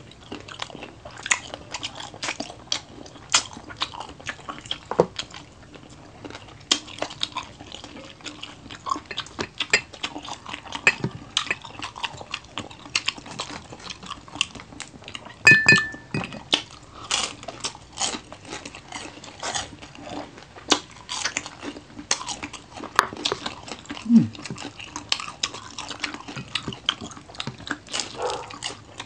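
Close-up crunching and chewing of crispy fried adobo chicken feet and dynamite rolls, with sharp crunches every second or so and one louder crack about halfway through.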